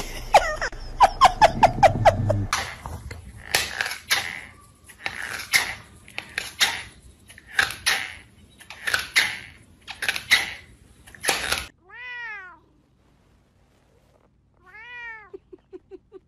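A quick string of about eight short cat chirps, then a run of about eight harsh, noisy sounds roughly a second apart, then a kitten meowing twice, each meow rising and falling in pitch.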